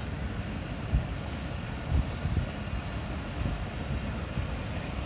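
Millat Express passenger coaches passing close by on the track: a steady rolling noise with a few low thumps from the wheels.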